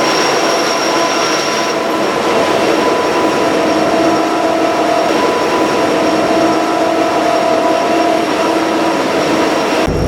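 Freight train running, heard from inside a trailing locomotive cab: a steady loud rumble with high squealing tones from the wheels that come and go. Just before the end it changes abruptly to a deeper rumble.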